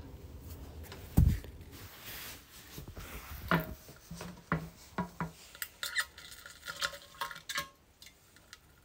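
Sounds of a person on a toilet: one short, low thump a little over a second in, then a run of light clicks and clattering knocks that stop near the end.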